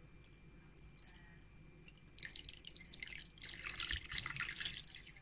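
Liquid poured from a plastic bottle into a plastic tub over a rusty axe head: a few faint drips at first, then splashing and trickling from about two seconds in, loudest past the middle with a brief lull.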